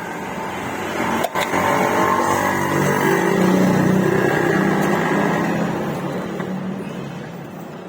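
A motor vehicle's engine passing by, growing louder and then fading away, with one sharp knock just over a second in.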